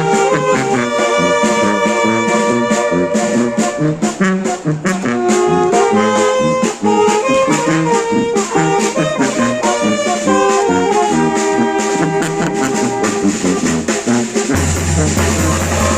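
Oaxacan village brass band playing, trumpets and trombones carrying the melody over a steady beat. About a second and a half before the end the sound changes and a low steady hum comes in.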